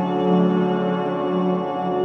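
Background music of sustained, held tones with no clear beat.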